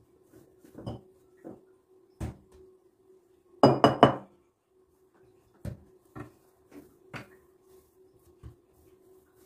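Dishes and cutlery being handled, with scattered knocks and clinks. The loudest is a quick run of three or four ringing clinks a little under four seconds in. A faint steady hum runs underneath.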